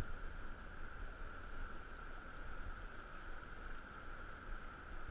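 Steady hiss of running river water, with a faint low rumble underneath.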